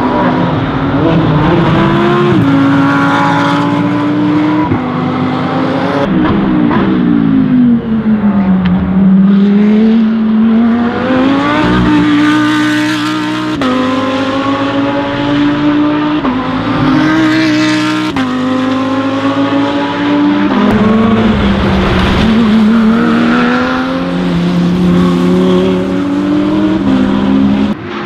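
Audi R8 LMS race cars' 5.2-litre V10 engines going by at speed over several passes. The pitch climbs through the gears with a sharp drop at each upshift, and falls away in slower glides as the cars slow for corners.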